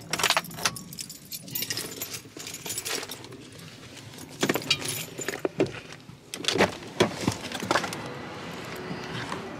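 Keys jangling and clinking in irregular bursts, mixed with handling knocks.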